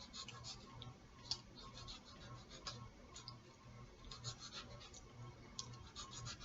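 Faint scratching and light clicking in short irregular clusters, from hands handling and cutting salad ingredients.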